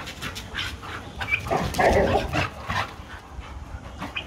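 Dogs barking and yipping in short repeated bursts while playing, loudest in a quick cluster around the middle.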